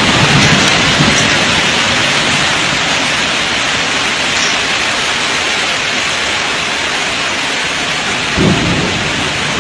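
Heavy rain pouring down in a thunderstorm: a loud, steady, dense hiss, with a brief low rumble about eight and a half seconds in.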